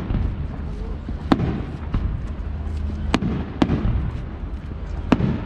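Fireworks display: shells bursting in about five sharp bangs, spaced roughly a second apart, over a continuous low rumble.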